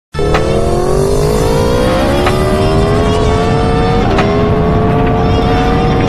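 Sport motorcycle engine at full throttle, its pitch climbing steadily through the gears. Three quick upshifts come about two seconds apart, each marked by a sharp crack and a sudden drop in pitch, and the climb is slower in each higher gear. Steady wind and road rush runs underneath.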